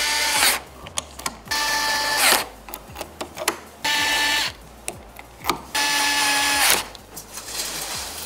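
A small electric motor whirring in four short runs, each under a second, its pitch dropping as it winds down at the end of each run.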